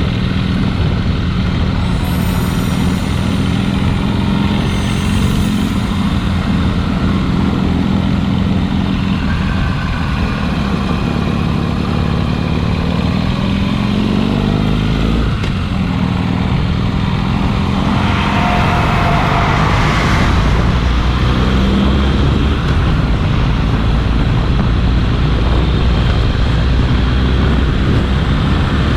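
Harley-Davidson Sportster's V-twin engine running under way, with a heavy rumble of wind on the microphone. The engine note rises about halfway through as the bike speeds up.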